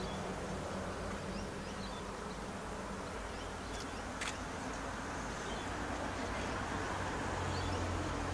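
Diesel locomotives of an approaching freight train running as a steady low drone, growing a little louder near the end as they draw nearer.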